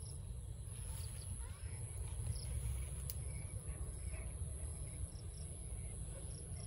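Outdoor ambience: a steady high-pitched insect trill over a low rumble, with a few faint short chirps and one sharp tick about three seconds in.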